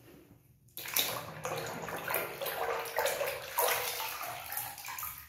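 Water splashing and sloshing in a basin of soapy water as a toy truck is scrubbed and swished by hand. The splashing starts suddenly about a second in and goes on in quick, choppy strokes.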